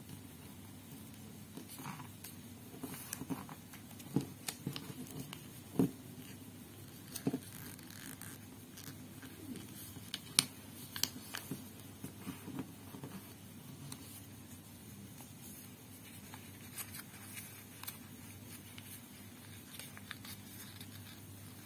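Origami paper being folded and creased by hand: soft rustling with many short, sharp crackles, most of them in the first half and the loudest about ten seconds in.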